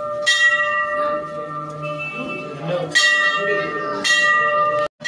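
Hindu temple bell struck three times, its metallic tone ringing on steadily between strikes.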